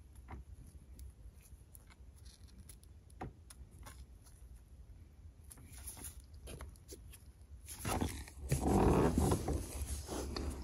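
Faint rustling and light taps of a nitrile-gloved hand working along a rubber car door seal. About eight seconds in comes a louder, rough noise lasting about two seconds, of unclear source.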